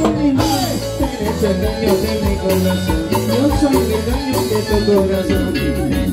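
Live Latin dance band playing a loud instrumental passage, with steady bass notes, percussion keeping a regular beat and a gliding melodic lead line.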